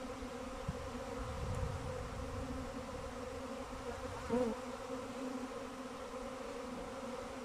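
A swarm of honeybees in flight, a steady drone from many bees at once, with one louder buzz rising and falling about four seconds in. The swarm is still airborne, searching for a place to settle.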